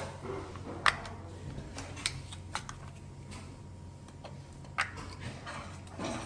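A small pick prying the plastic covers off a Steelcase Gesture chair's adjustment knob: a few scattered sharp clicks and taps, the loudest about a second in and again near five seconds.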